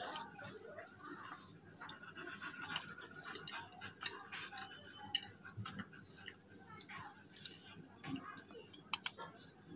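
Eating with the fingers: hand mixing and squishing rice on a steel plate, with chewing and scattered short wet clicks and smacks, two sharper clicks about five and nine seconds in.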